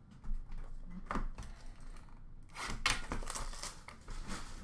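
Cardboard hobby boxes of Upper Deck Clear Cut hockey cards being handled, one taken from a stack and moved, with a few light knocks and a rustling scrape about halfway through.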